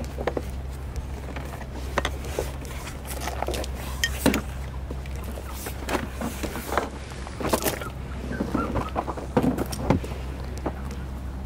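Plastic clicks, knocks and rustling as a child car seat is handled in a car's back seat, over a steady low hum.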